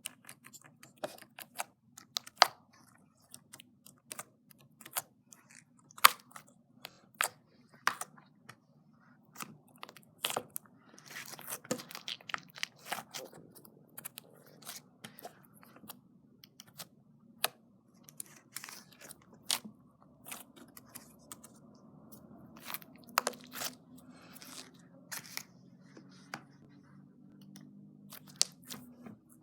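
Slime being squished and poked, giving irregular sharp clicks and pops, with a stretch of denser crackling about ten to thirteen seconds in.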